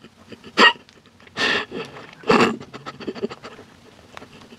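A person's short, breathy puffs of breath, three loud ones close together in the first two and a half seconds, then quieter.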